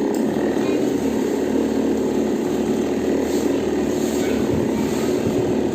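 Two-stroke chainsaw engine running steadily.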